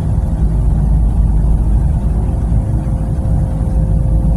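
Steady low rumble of a moving passenger train, heard from inside the carriage, with a constant hum over it.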